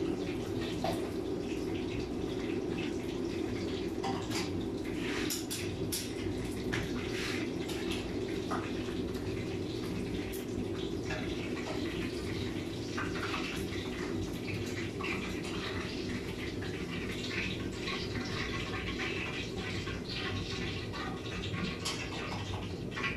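Cooking on a gas stove: a steady bubbling hiss of a pot of water boiling and food frying, with a metal utensil scraping and clicking against the pan now and then.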